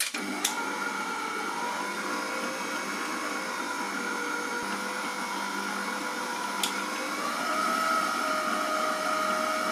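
Silvercrest SKM 650 A1 stand mixer's motor running at speed 2, its flat beater turning through flour and salt: a steady motor whine that starts at once and rises a little in pitch about seven seconds in.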